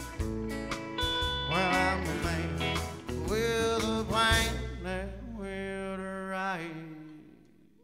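Country band playing live: drums and guitars, with guitar notes gliding in pitch, then the band holds a final chord about five seconds in that rings out and fades away near the end.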